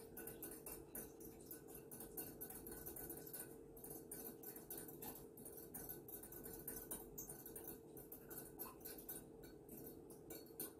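Faint, quick irregular clicking of a small whisk stirring against the sides of a measuring cup, dissolving honey in hot water, over a faint steady hum.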